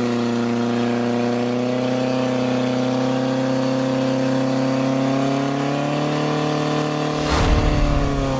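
Portable fire pump's engine running steadily at high revs as it drives water through the attack hoses, its pitch sagging slightly about six seconds in. A brief burst of low rumbling noise comes about seven seconds in.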